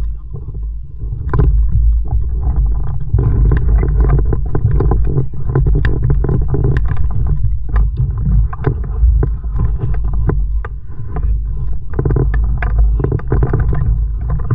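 Kayak on the water, heard through an action camera: a heavy, steady low rumble of water and wind, with frequent small splashes and clicks scattered irregularly throughout.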